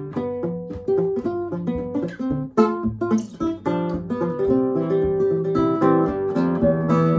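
Nylon-string classical guitar played fingerstyle: a steady picked bass line runs under chords and a melody. One sharper, louder accent comes about two and a half seconds in.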